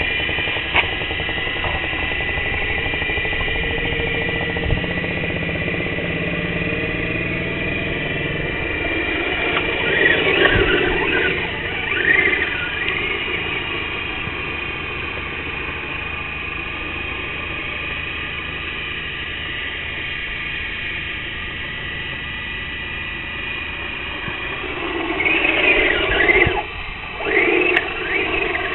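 Radio-controlled rally car's motor whining steadily as it is driven, rising and falling in short bursts of throttle about ten seconds in and again near the end.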